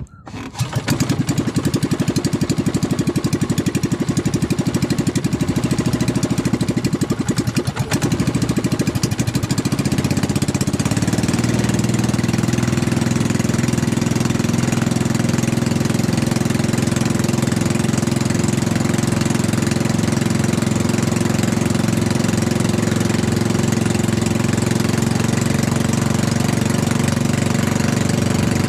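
Outrigger fishing boat's engine starts up within the first second and runs loudly with a fast, even chugging; its note steadies about ten seconds in as the boat gets under way.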